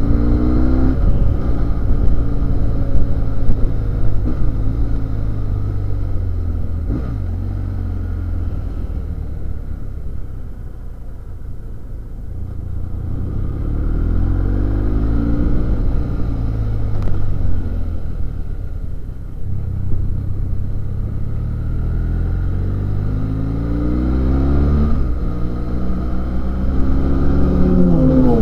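BMW F800GS motorcycle's parallel-twin engine running as the bike rides mountain bends, heard from on board with road and wind noise. The engine note rises under acceleration about a second in, around halfway and again near the end, and eases off in between.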